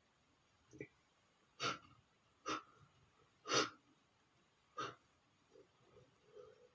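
A man's short, sharp breaths through nose and mouth: five quick gasps or sniffs spaced about a second apart, the fourth the loudest, with faint softer breathing near the end.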